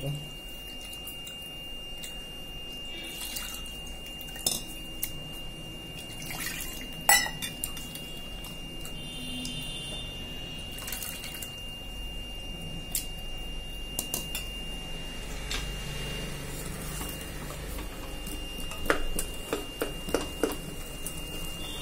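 Soaked tamarind being squeezed by hand in water in a steel bowl: wet squishing and sloshing, with occasional clinks of steel vessels. Near the end comes a short run of scrapes and knocks from a spatula stirring in a stainless steel pressure cooker.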